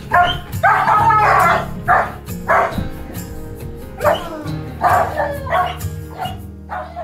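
A large black-and-tan shepherd-type dog gives a string of about nine loud, excited calls in quick succession, one of them longer about a second in, as it greets its returning owner. Background music plays underneath.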